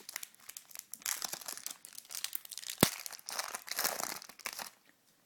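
A 2011 Upper Deck football card pack's wrapper being torn open and crinkled, with one sharp snap about halfway through. The crinkling stops about a second before the end.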